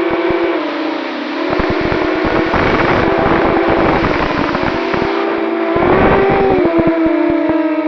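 Motors and propellers of a 250-size FPV quadcopter whining, the pitch sliding up and down with the throttle. Wind buffets the microphone from about a second and a half to five seconds in and again around six seconds.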